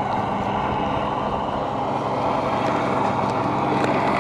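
A motor running steadily at a constant pitch, a continuous mechanical hum.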